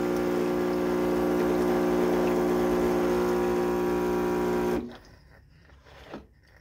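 Philips Saeco Poemia espresso machine's pump running with a steady hum as it pushes descaling solution through the machine. It cuts off abruptly about three-quarters of the way through when the control knob is turned back.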